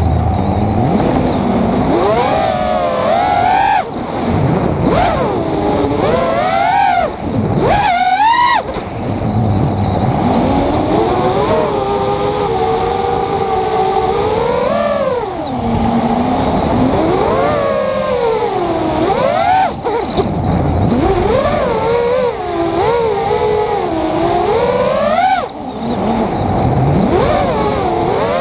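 FPV quadcopter's brushless motors and propellers whining from its onboard camera, the pitch sweeping up and down with the throttle, with about four short drops where the throttle is chopped.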